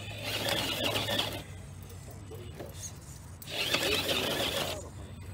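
Radio-controlled rock crawler's electric motor and gears whirring in two bursts of throttle, each about a second long: one at the start and one about three and a half seconds in.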